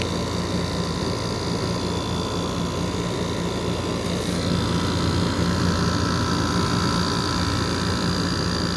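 Outdoor unit of an older Kenmore heating and air-conditioning system running: a steady whir from the condenser fan over a steady hum, with a few constant tones.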